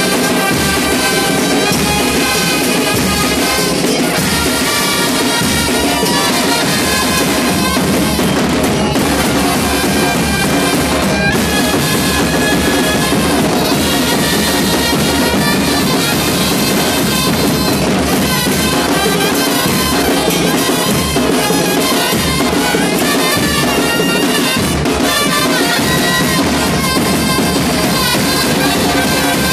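A band playing music, with drums prominent: bass drum and snare under several pitched instruments holding notes, loud and without a break.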